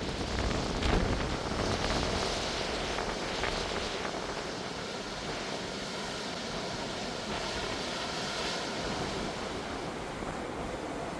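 Ocean surf washing and breaking, with wind buffeting the microphone, strongest in gusts during the first few seconds.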